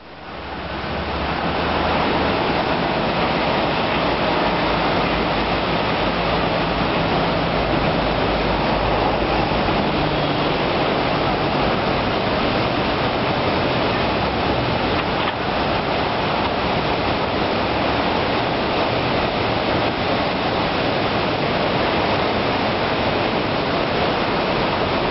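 Flood-swollen river pouring over a low dam: a steady, loud rush of whitewater churning below the spillway, swelling up over the first couple of seconds and then holding even.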